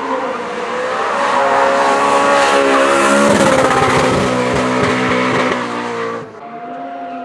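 Drift car sliding through a bend with its tyres squealing and its engine running hard; the sound swells as the car comes close. About six seconds in it cuts off abruptly, leaving a quieter engine note.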